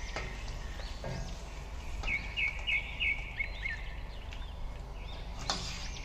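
Small songbirds chirping over and over, with a quick run of four bright, evenly spaced chirps about two seconds in. A few sharp clicks, the loudest near the end, and a steady low hum sit underneath.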